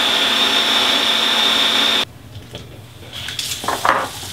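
Electric food processor running, pureeing grilled eggplant for baba ganoush, with a steady high whine. It cuts off sharply about two seconds in. Light plastic clicks and knocks follow as the bowl and lid are handled.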